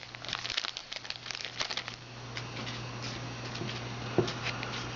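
Rustling and crinkling of a foil trading-card pack wrapper and cards being handled. It is dense for the first couple of seconds, then thins to a few scattered clicks.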